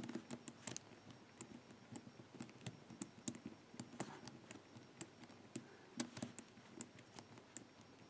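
Faint, irregular clicking of the number wheels of a Master four-wheel combination padlock being turned by hand, each wheel rocked between the points where it stops while the lock is decoded by feel.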